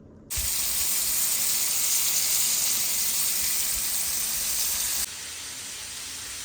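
Pieces of fish frying in a pan of hot oil, a steady sizzle. It starts suddenly and drops abruptly to a quieter sizzle about five seconds in.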